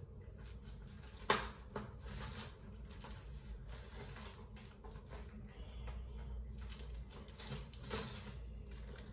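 Clear plastic wrapping rustling and crinkling in irregular bursts as a wrapped canvas print is handled and turned over, with one sharper tap about a second in.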